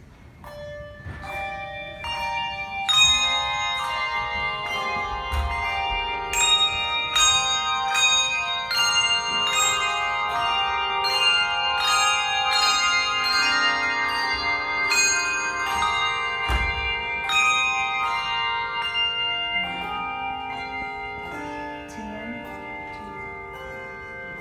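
Church bells ringing, struck several times a second with their tones ringing on and overlapping. The strikes thin out and the ringing dies away over the last few seconds.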